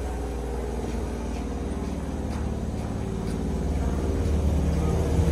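Sanyo Electric Railway 3000 series electric train pulling away from the platform: a low steady hum that grows louder from about four seconds in as the train gathers speed.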